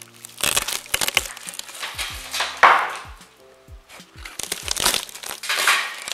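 Background music with a steady beat over bursts of crackling and crunching as debris and old ceiling boards are broken out by hand; the loudest crunch comes about two and a half seconds in.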